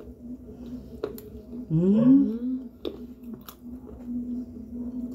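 Mealtime sounds: a metal spoon clicking against a plastic plate a few times, with a short rising voiced sound about two seconds in. A steady low hum runs underneath.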